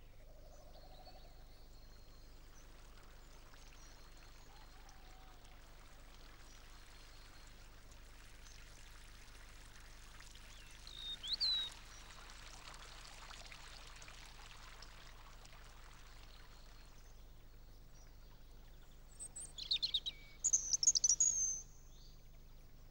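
Faint steady splashing of fountain water falling into a garden pond, with a short rising bird chirp about eleven seconds in and a few louder bird calls near the end.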